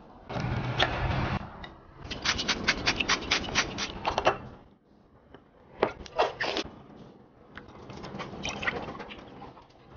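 Kitchen handling sounds: tongs scraping cooked vegetables out of a pan, then a wooden spoon clicking rapidly against a small ceramic dish while stirring a dipping sauce, and near the end juice pouring into a glass.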